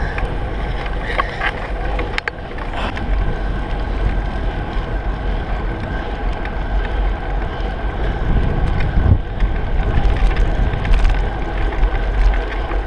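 Wind buffeting the microphone of a camera mounted on a moving bicycle: a steady low rumble. A couple of light knocks come about two seconds in.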